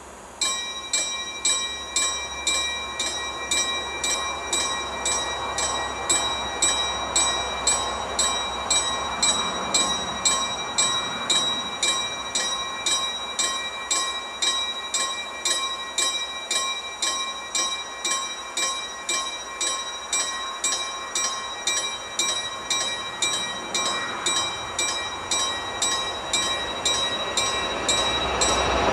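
Railway level crossing warning bell ringing in even strokes, about two a second, starting suddenly about half a second in: the signal that a train is approaching. Near the end the rumble of the approaching train rises under the bell.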